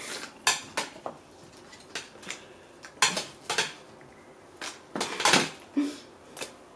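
Chopsticks clinking and tapping against a stainless-steel hot pot and dishes while spring onions are laid into the pot: a series of short, irregular clinks.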